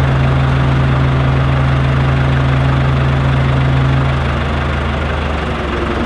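Telehandler engine idling steadily with a deep, even hum; about four seconds in its note drops a little and softens.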